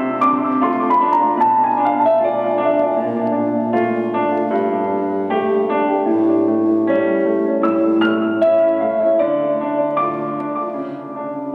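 Piano music: a steady stream of notes over held lower tones.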